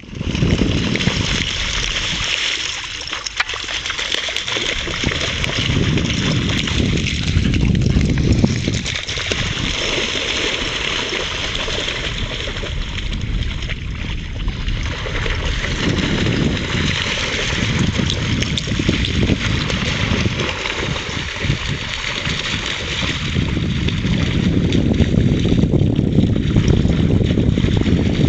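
White shepherd dogs running and splashing through shallow lake water, with sloshing and splashing that swells and eases as they chase, over a continuous low rumble.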